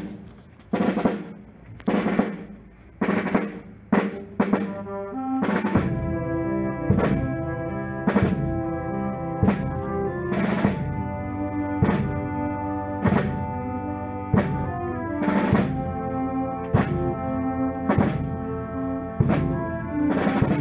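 Processional band music: a drum beating slowly, about one stroke a second with a short roll, then about five seconds in the full band comes in with a slow march of sustained chords over the same steady drum beat.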